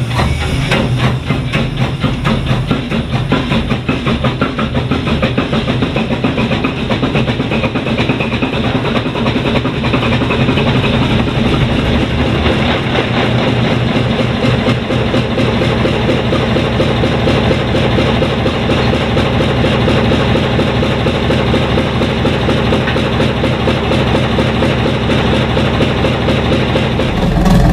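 An engine running steadily with rapid, even firing pulses, getting a little louder about ten seconds in.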